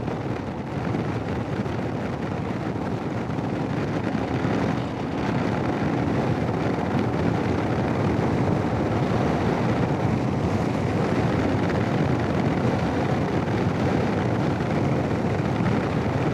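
Royal Enfield Himalayan's single-cylinder engine running on the move, mixed with steady wind rush on the helmet microphone, getting louder about five seconds in.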